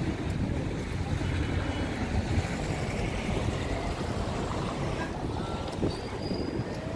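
Wind buffeting the microphone of a handheld camera carried outdoors: a steady, uneven low rumble with a faint open-air background beneath it.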